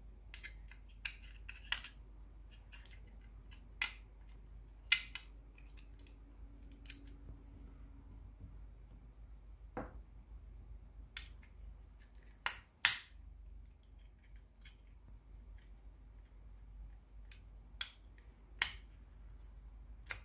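Scattered sharp clicks and snaps of AAA batteries being pushed into the plastic battery compartment of a small door/window contact sensor, against its metal battery contacts, with the back cover being pressed on near the end. The loudest snaps come about five, thirteen and nineteen seconds in.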